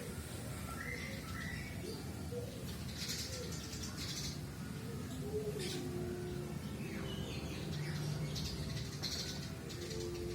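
Birds chirping in short scattered calls, with some low cooing like doves or pigeons.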